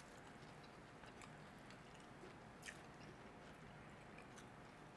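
Faint chewing and wet mouth clicks of people eating fried chicken legs and potato wedges, with a few sharper smacks, the clearest about two and a half seconds in.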